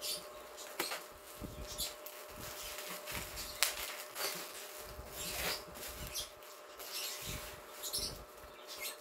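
Scissors cutting through bubble wrap and tape, the plastic crinkling and rustling in irregular short bursts, with a sharp snip or click about three and a half seconds in.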